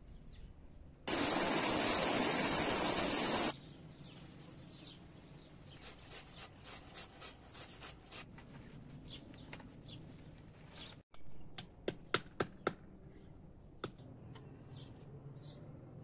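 A couple of seconds of steady rushing noise that cuts off sharply. Then a vegetable peeler scrapes down a green vegetable in quick strokes, about three a second. Later come a few sharp clicks.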